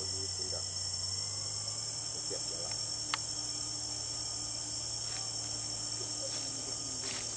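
Steady high-pitched chorus of insects, with faint distant voices and a single sharp click about three seconds in.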